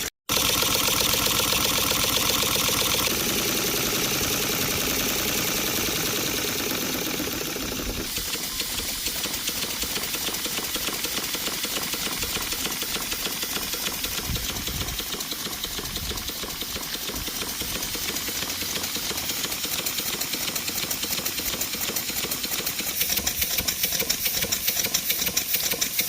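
Double-cylinder full-pressure steam engine running with a fast, even beat over a hiss; its packings are worn and due for renewal. The sound changes about 8 seconds in and grows louder near the end.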